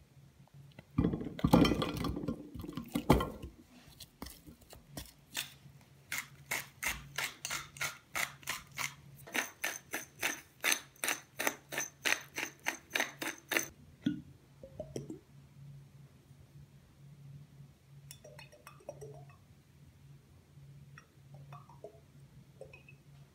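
Food tipped into a glass baking dish with a clatter of knocks about a second in. Then a hand pepper mill is turned over the food: an even run of grinding clicks, about three a second, for some nine seconds before it stops.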